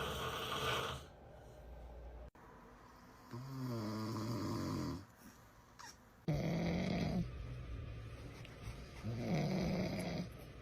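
A man snoring loudly: about four separate snores a few seconds apart, some with a wavering pitch.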